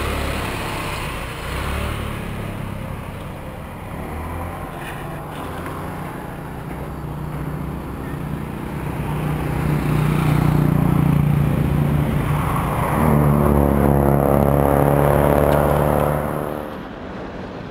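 Motorcycle engine running while riding in road traffic. The engine note climbs in pitch as it speeds up about ten seconds in, and again for a few seconds near the end, then drops back.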